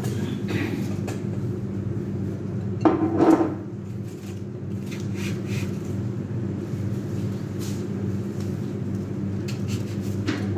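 Handling noises as eucalyptus stems are worked into a tall vase on a stone counter: a loud clunk about three seconds in and a smaller one at the end, with light clicks and rustles over a steady low hum.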